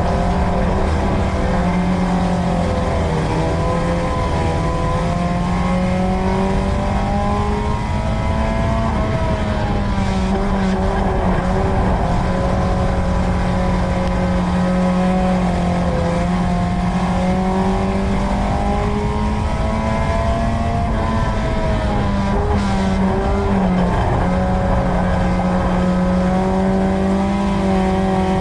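Dirt-track race car engine running hard at racing speed, heard from inside the car. Its pitch dips and climbs again several times as the car lifts into the corners and accelerates down the straights.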